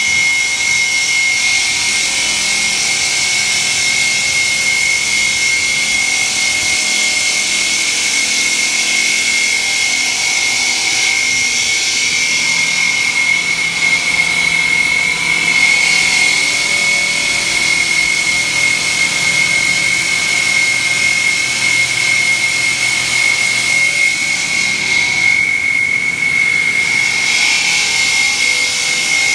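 OMC-DDQ CNC stone profiling machine's water-cooled diamond saw blade cutting through a stone slab: a loud, steady high-pitched whine over a constant hiss of grinding and spraying water.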